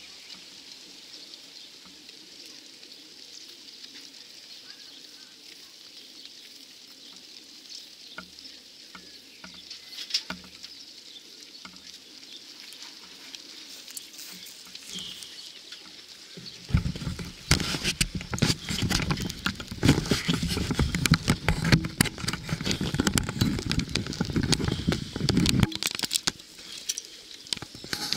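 Racing pigeons released all at once from a transport lorry's crates: a sudden loud clatter of many wings beating as the flock takes off, starting about two-thirds of the way in and dying away after about nine seconds.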